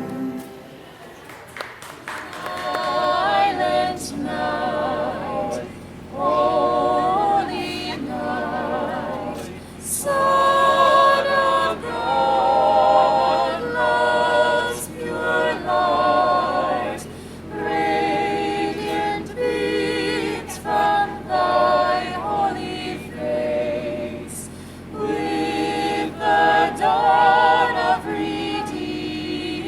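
Choir singing a cappella, starting about two seconds in, in sung phrases separated by short breaks.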